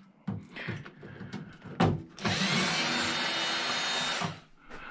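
A few knocks of the driver bit against the microwave's sheet-metal case, then a power drill-driver running for about two seconds, its whine rising as it spins up, backing out a screw, and stopping abruptly.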